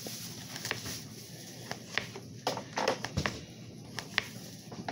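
Kitchen knife dicing tomatoes on a plate: about ten short, irregular taps of the blade striking the plate.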